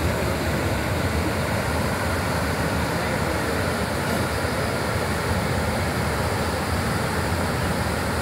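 Brahmaputra floodwater rushing through a breach in an earthen embankment: a steady, unbroken noise of turbulent water.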